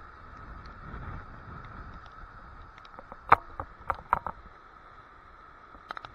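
Tidal rapids rushing over rocks as a steady, even hiss. A few sharp ticks close to the microphone come between three and four seconds in and again near the end.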